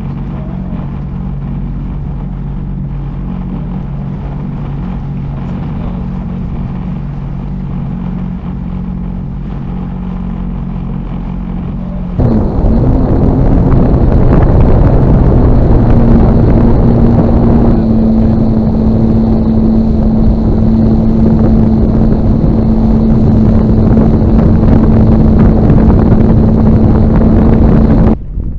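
Sea-Doo Fish Pro jet ski's four-stroke three-cylinder Rotax engine idling with a steady low hum. About twelve seconds in, it is suddenly much louder: the engine runs fast with a steady drone under a heavy rush of wind and water, cutting off just before the end.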